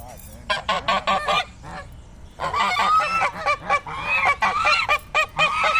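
Geese honking: a short flurry of honks about half a second in, then a long run of loud, rapid honks from about two and a half seconds in.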